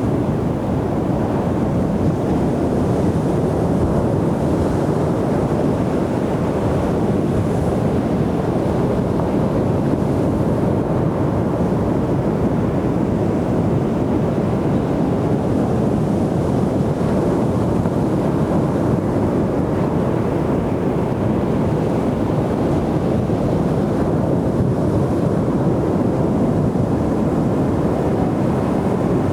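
Ocean surf breaking on a beach: a steady rush of waves with no distinct surges standing out.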